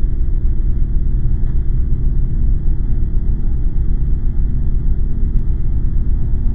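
A loud, steady, deep rumbling drone of dark horror-style sound design, with no clear beat or melody.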